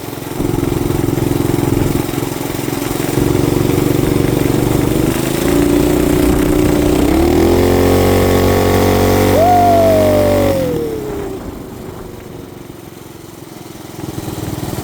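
Motorcycle engine running on the move. Its revs climb about seven seconds in and are held, then the throttle closes about ten and a half seconds in and the engine drops back quieter, picking up again near the end. A whine falls in pitch around the throttle cut.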